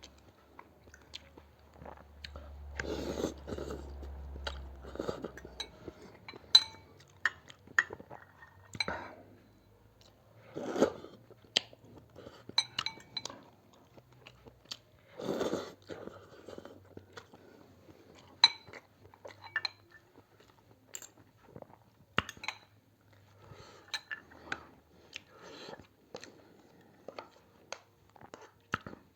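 Close-up eating sounds of a person having a bowl of chicken thukpa noodle soup: slurping, chewing and swallowing, with scattered sharp clicks of a spoon or bowl. Several longer slurps stand out, about three, nine, eleven and fifteen seconds in.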